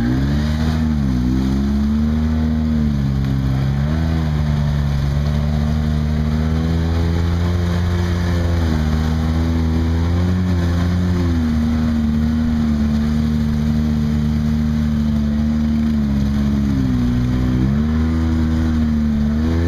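Engine of a side-by-side UTV heard from on board, running steadily at low speed, its pitch dipping and rising again several times as the throttle is eased off and reapplied.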